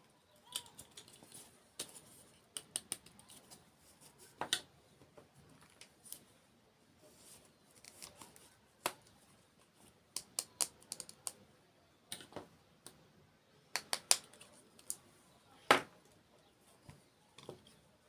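Close-miked mukbang eating sounds: sharp crunches and clicks at irregular intervals, a few much louder than the rest.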